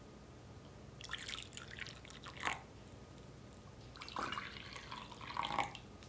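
Crisp, flaky cream puff shell crackling and crunching in two separate bursts, as the pastry is broken or cut into.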